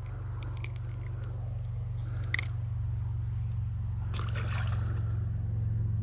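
Steady low rumble growing slightly louder under a constant high insect chorus; a sharp click a little over two seconds in, then a brief splashy clatter about four seconds in as a small bass is let go into the creek.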